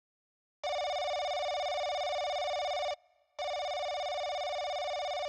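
Telephone ringing: two long, steady, buzzy electronic rings, the first starting about half a second in and the second following after a short pause.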